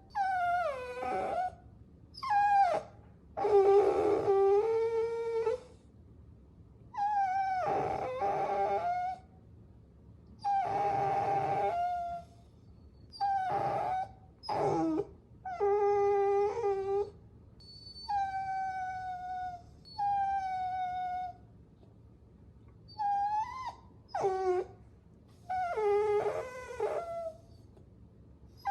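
Puppies whining: a string of high-pitched whines, each a second or two long with short pauses between, some sliding down in pitch.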